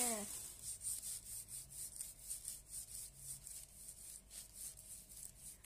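Toothbrush bristles scrubbing back and forth over a plastic-covered paper sheet: faint, rhythmic scratchy strokes, several a second.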